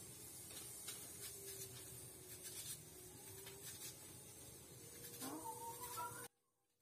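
A cat meowing: a long, faint wavering cry, then a short meow about five seconds in, over faint crisp cuts of a knife slicing a red onion by hand. The sound cuts off abruptly near the end.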